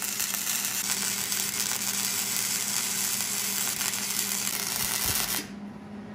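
Wire-feed (MIG) welder arc crackling steadily while welding steel angle iron, stopping abruptly about five and a half seconds in; a low steady hum carries on underneath.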